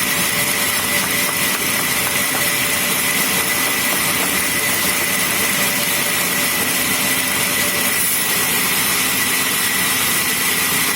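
Sawmill machinery running steadily: a constant high whine over an even hiss, with no change in load.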